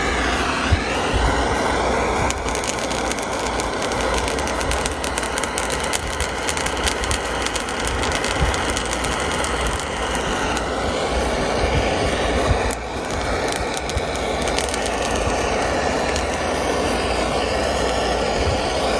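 Handheld propane torch flame burning with a steady rushing hiss as it chars green Manganji peppers in a stainless steel pan, with scattered crackles and a brief dip in the flame noise about two-thirds of the way through.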